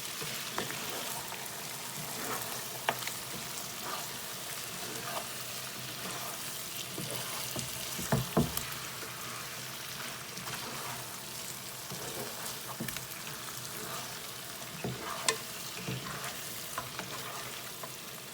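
Lamb pieces in masala and tomato sizzling steadily in a pot, with a utensil now and then knocking and scraping against the pot as the meat is moved around, a few sharp clicks loudest about halfway through.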